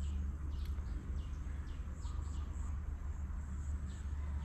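Outdoor ambience: a bird repeating short, high chirps that each slide downward, over a steady low rumble.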